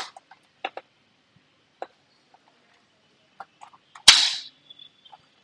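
Small clicks and taps of screws and a screwdriver being handled on a laptop's bottom case, then one loud, sharp snap about four seconds in.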